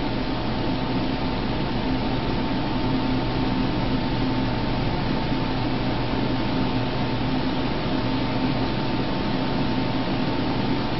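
Steady hiss with a constant low hum and a few held tones; nothing starts, stops or changes.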